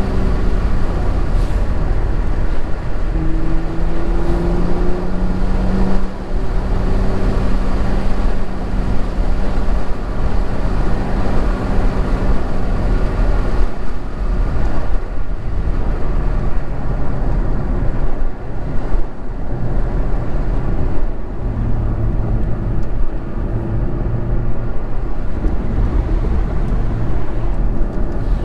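BMW M2's turbocharged straight-six being driven on the road, its engine note rising and stepping with throttle and gear changes over steady tyre and wind noise.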